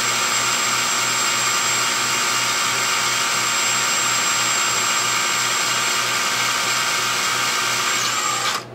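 12-volt DeWalt cordless drill running steadily with a high whine, driving a tiny 1/16-inch bit through a small metal pin. The motor cuts off abruptly near the end.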